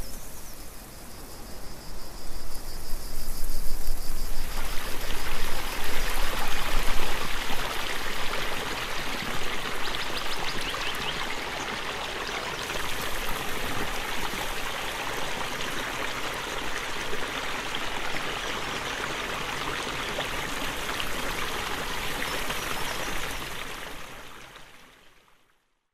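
Water of a shallow stream running over a stony bed, a steady rushing hiss. It grows louder about four seconds in and fades out near the end.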